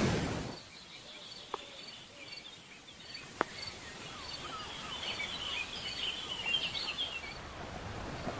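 Small birds chirping: a short high note repeated every so often, then busier twittering from about five to seven seconds in. Surf from the sea fades out in the first second, and two sharp clicks come at about one and a half and three and a half seconds.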